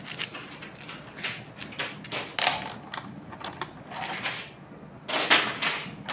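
Rough quartz and other raw mineral stones clicking and rattling against each other as they are handled in a hand and in plastic tubs. A little after five seconds comes a louder scrape and rattle of about half a second as a plastic tub of stones is grabbed and moved on the table.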